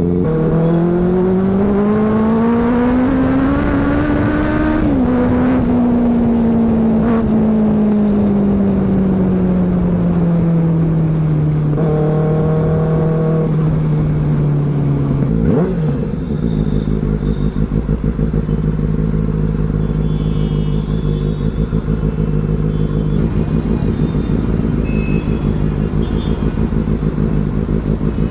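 Benelli 600i's inline-four engine accelerating, its note rising for about five seconds. After a gear change it falls away slowly, and from about halfway it settles into a steady low run.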